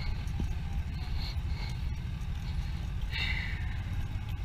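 Wind rumbling on a GoPro action camera's microphone while walking on a seaside path, with faint recurring ticks and a brief higher sound a little over three seconds in.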